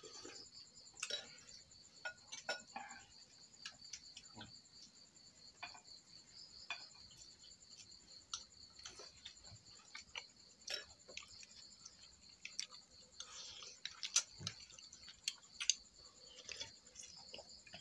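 Spoons and chopsticks clinking and tapping against ceramic bowls and plates while eating, in scattered irregular clicks. Under it, night insects trill on without a break in a steady, fast-pulsing high chorus.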